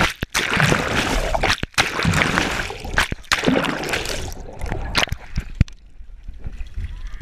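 Water churning and gurgling around a submerged action camera, loud for about four seconds with brief cut-outs, then dying down as the camera comes back up to the lake surface. A few sharp knocks and splashes come through in the second half.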